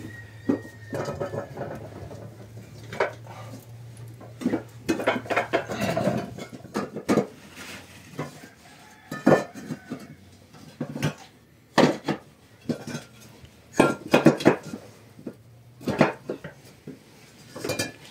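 Hollow fired-clay bricks knocking and clinking against one another and on the brick floor as they are set down and laid in rows, a string of irregular sharp knocks.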